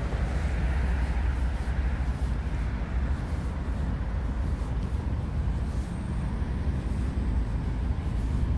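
Steady outdoor rumble of wind buffeting the microphone, with road traffic in the background.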